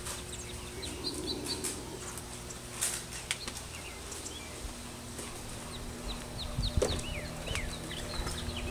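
Small birds chirping, short quick chirps scattered throughout, over a steady low hum, with a few soft low thumps about six and a half seconds in.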